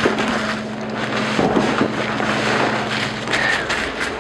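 Steady low machine hum under an even rushing noise.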